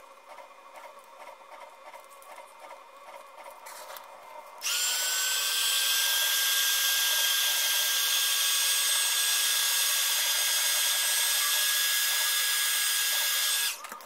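Handheld heat gun switched on about four and a half seconds in, blowing a loud, steady rush with a high whine that rises a little as it spins up, then switched off sharply just before the end. It is shrinking heat-shrink tubing over soldered limit-switch wire joints.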